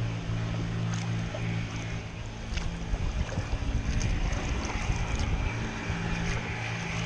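Kayak moving through calm river water: water lapping and splashing at the hull and paddle, with scattered drips and small splashes, wind gusting on the microphone, and a steady low hum underneath.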